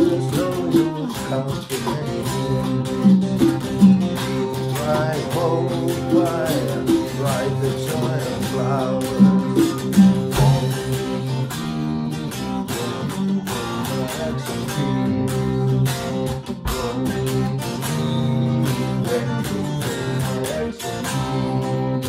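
Electric guitar playing an instrumental break in a rock song, with bent, sliding notes through the first half.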